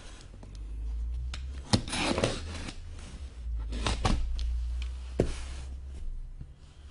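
Handling noises on a table: rubbing and shuffling with a few sharp knocks, as boxes are moved and set down, over a steady low hum.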